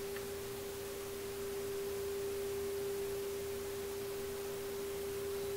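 A steady, pure mid-pitched test tone from the Marconi 201A tube radio's speaker: the signal generator's modulation tone coming through the set. It grows a little louder about two seconds in as an IF transformer trimmer is peaked during alignment.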